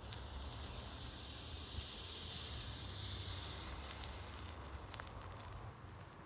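Iron oxide and aluminum thermite burning: a rushing hiss that starts suddenly with a sharp crack, holds strong for about four seconds, then dies down with a few crackles.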